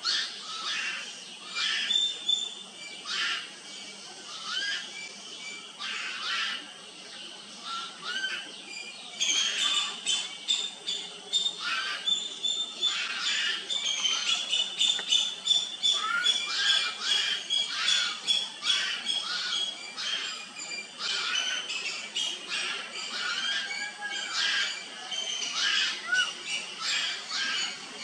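Young birds begging for food from a house crow: a long run of rapid, harsh squawking calls, packed densest from about ten seconds in.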